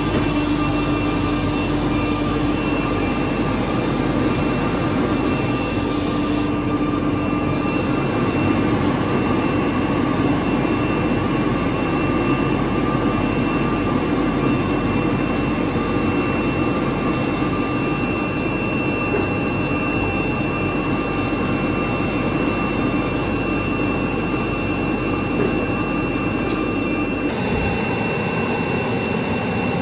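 ATC CNC router running: a steady mechanical rush with a high, steady whine. The sound shifts about six seconds in and again near the end as the machine changes what it is doing.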